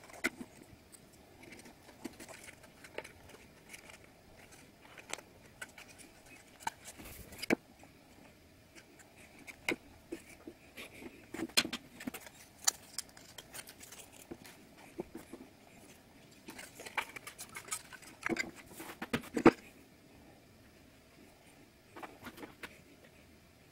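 Printed board pieces of a model-house puzzle kit being handled, slotted together and set down on a table: scattered light clicks, taps and paper rustles. They come in two busier stretches, around the middle and about three-quarters through, the loudest tap at the end of the second.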